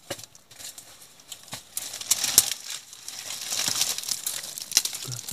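Dry leaves and debris rustling and crackling as they are disturbed, with scattered sharp clicks and scrapes. The sound grows busier and louder about two seconds in.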